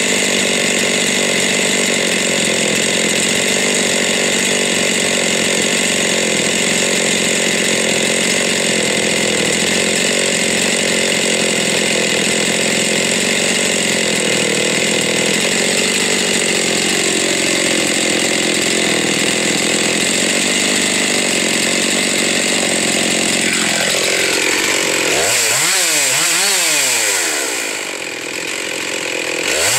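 Husqvarna 372 XP two-stroke chainsaw with a big block kit running at high speed, held steady for most of the time as it cuts through a log. Near the end the engine revs up and down repeatedly.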